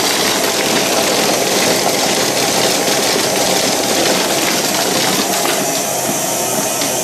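Pace's Races 1930s horse-racing slot machine running a race: its motor and chain-driven mechanism run with a loud, steady mechanical clatter as the horses advance.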